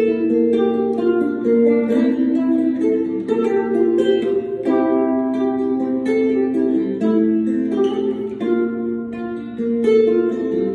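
Solo ukulele being fingerpicked, a quick melody of plucked single notes mixed with chords.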